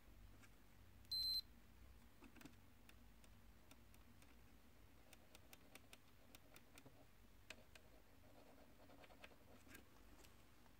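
A Hioki 3244 Card HiTester multimeter on its continuity-buzzer setting gives one short high beep about a second in as the test probes close a conducting path, with faint clicks of the probe tips touching the terminals.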